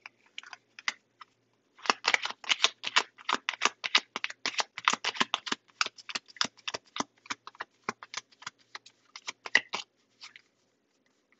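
A deck of tarot cards being shuffled by hand: a quick run of crisp card clicks and snaps, about six a second, starting about two seconds in and stopping near the end.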